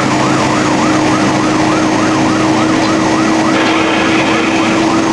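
Fire engine's electronic siren in a fast yelp, its pitch rising and falling about three times a second, with a steady lower tone under it.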